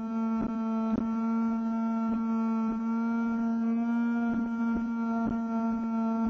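Small electric fan running close to the microphone: a steady hum with a stack of overtones. Faint knocks come through about twice a second.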